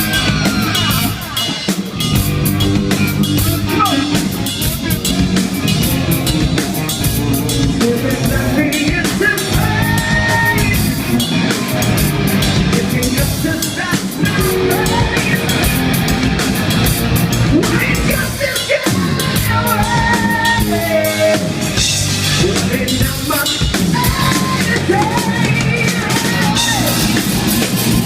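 Loud live rock music from a band: a drum kit keeping a steady beat under electric guitar lines with bending notes.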